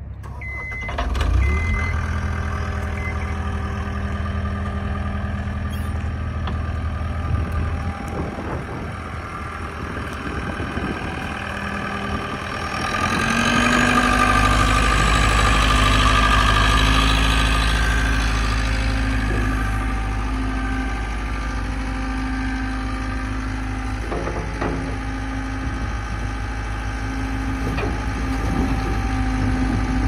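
John Deere 323D compact track loader's diesel engine running. It gets louder with higher revs about twelve to fourteen seconds in, then eases back a little and runs steadily.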